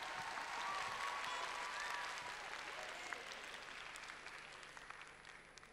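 Audience applauding, swelling in the first second or so and then fading away near the end.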